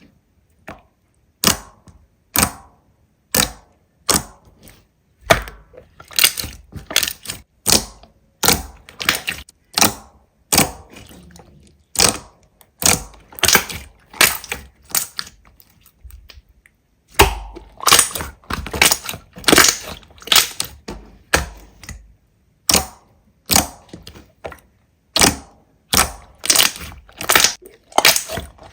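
Crunchy slime being squeezed and pressed by hand, giving sharp crackling pops about once or twice a second, with a short pause just past the middle.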